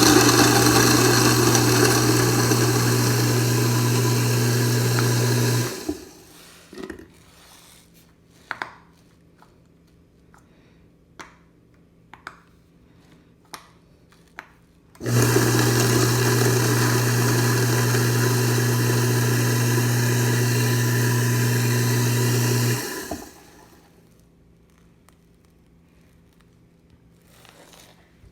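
Kitchen garbage disposal running twice while grinding a cup of ice, a loud steady motor hum under harsh grinding. The first run stops about six seconds in. After a pause with a few light clicks, it starts again about fifteen seconds in and runs for about eight seconds.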